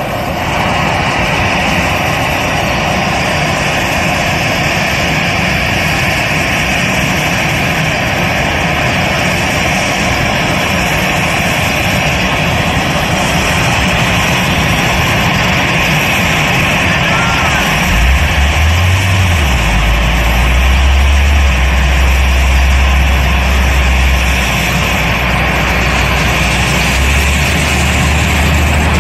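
Turbofan engines of a taxiing twin-jet airliner running steadily at low power, a loud even engine noise; a deep low hum joins about two-thirds of the way through.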